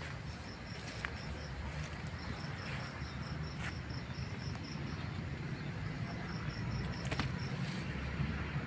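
An insect chirping in runs of evenly spaced high chirps, about five a second, over a low steady rumble with a few faint clicks.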